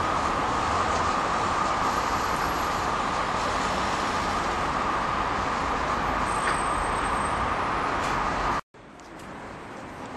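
Heavy city car traffic: a steady, loud wash of engine and road noise from a jam of cars, with a steady high hum running through it. It cuts off abruptly near the end and gives way to a much quieter outdoor background.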